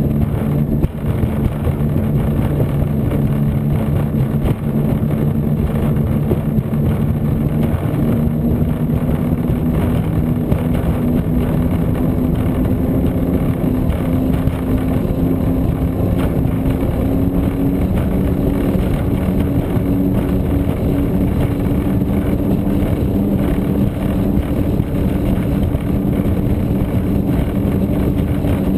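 Engines of a 36-foot Cigarette Gladiator powerboat running at speed: a steady drone whose pitch climbs a little partway through, then holds.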